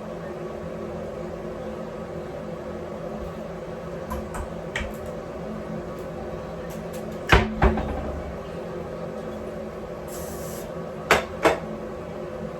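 Hand-held hair dryer running with a steady hum. Two quick pairs of sharp knocks come through it, one about halfway through and one near the end.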